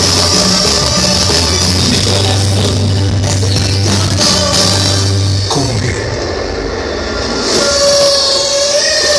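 Loud dance music with a heavy, steady bass line played over a large outdoor sound system. About halfway through the bass and beat drop out, leaving a held tone over a wash of noise.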